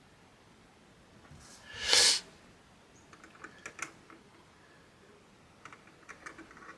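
Handling noise from PC parts being fitted: a brief loud rustling swish about two seconds in, then scattered light clicks and taps of plastic and metal parts.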